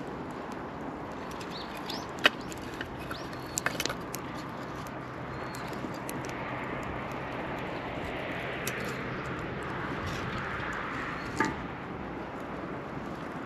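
Wood fire crackling in a fire pit, with a steady hiss and sharp pops about 2 s in, a cluster near 4 s and one near the end.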